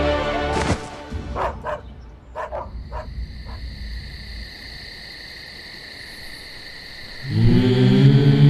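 Dramatic TV-serial background music cuts off with a sharp sweep, followed by a few short animal cries. A high steady drone holds after them, and low chant-like music swells in near the end.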